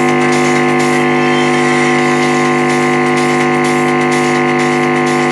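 Loud, steady hum and buzz from a speaker driven by a homemade JLH Class A transistor amplifier with its input ungrounded, with a high whine over it: 100 Hz rectified mains hum from an imperfect power supply, plus the amplifier oscillating at a high frequency.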